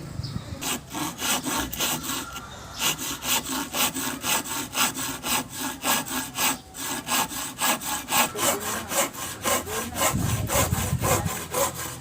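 Hand saw cutting through wood in quick back-and-forth strokes, about four a second, pausing briefly a couple of times.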